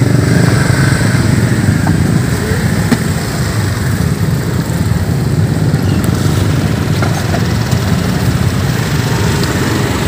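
A small engine running steadily throughout.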